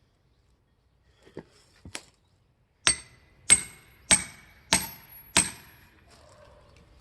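Five sharp metallic strikes in quick, even succession, about two every second, each with a brief ring, from tools used in splitting firewood. Two lighter knocks come before them.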